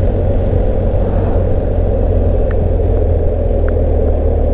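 Steady rumble of wind and road noise with the engine of a BMW GS Adventure motorcycle cruising at about 40 mph, heard from the rider's helmet-mounted camera.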